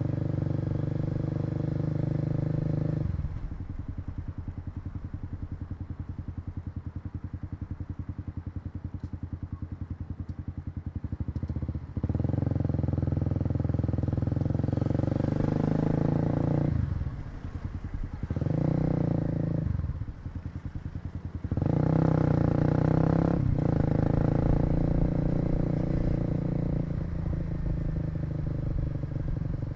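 Kawasaki KLX250 single-cylinder motorcycle engine heard from the rider's seat: running under throttle, then rolled off at about three seconds to a slow putter with each firing pulse audible. The throttle opens again about twelve seconds in, with two brief roll-offs a few seconds later before it settles into a steady run.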